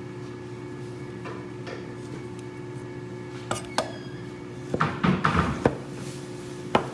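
Chinese cleaver cutting a tomato on a thick wooden chopping board. The blade knocks on the board a few times singly, then several times in quick succession about five seconds in, and once more near the end, over a steady low hum.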